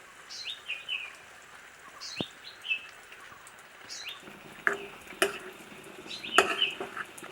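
A small bird chirping over and over in short, falling calls. Three sharp clinks of a utensil on the cooking pan come in the second half.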